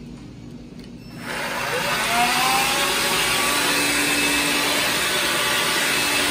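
Electrolux Ergorapido cordless stick vacuum switching on about a second in, its motor whine rising in pitch as it spins up, then running steadily with a loud rush of air.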